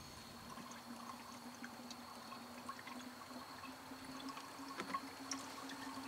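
Antifreeze coolant poured from a jug into a plastic coolant expansion tank while the cooling system is refilled: a faint steady trickle whose pitch edges slightly upward as the tank fills, with a few light ticks.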